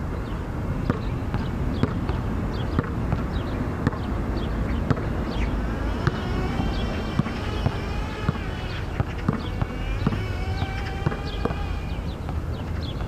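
A basketball bouncing on a hard outdoor court about once a second, over a steady low rumble, with high chirping and wavering tones through the middle.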